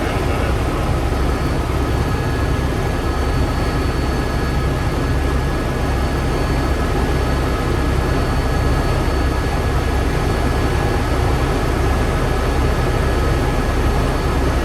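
Helicopter running steadily: a loud, unbroken low drone with a few thin steady whining tones above it.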